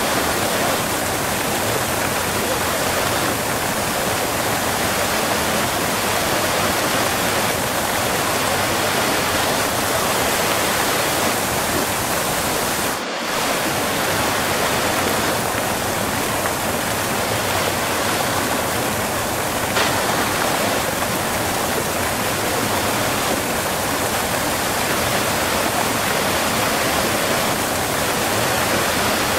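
Close-up waterfall: water pouring and splashing in a steady, dense rush, with a momentary drop in level about thirteen seconds in.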